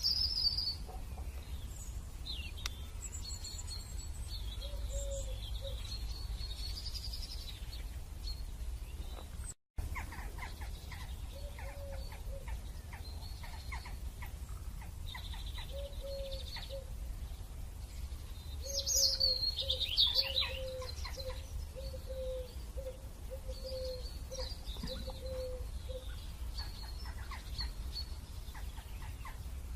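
Wild birds chirping and calling, with high trills and a series of short, low repeated notes in the second half, over a steady low rumble. The sound cuts out briefly about a third of the way in.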